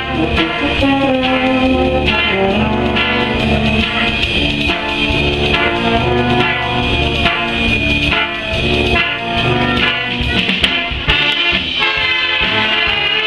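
A full brass band playing live: cornets, tenor horns, euphoniums, trombones and tubas sounding together in a continuous piece with held chords and sharp note attacks.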